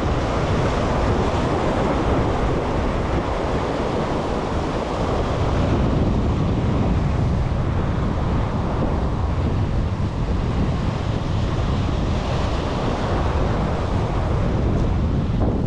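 Wind buffeting the microphone over the steady wash of waves on the jetty, an even rushing noise throughout.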